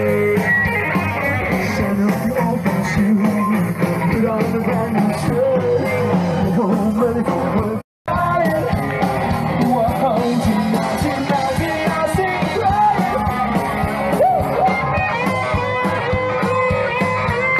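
Live rock band playing with a singer, picked up by a phone microphone in the crowd. The sound drops out for a moment about eight seconds in.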